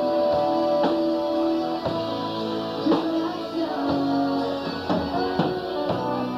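Live rock band playing: electric bass, guitar and drum kit, with a strong drum hit about once a second.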